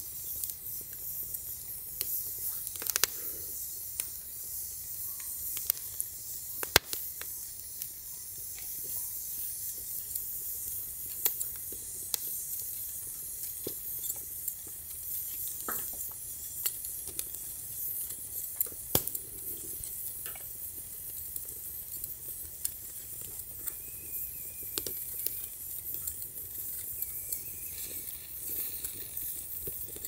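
Wood fire crackling: scattered sharp pops over a steady hiss.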